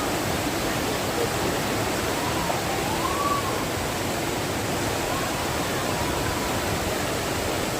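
Rushing water of a waterfall, a steady, loud, even rush with no breaks.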